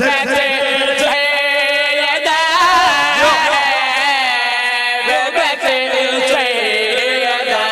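Men chanting a devotional qasida refrain in long, wavering held notes, amplified through microphones.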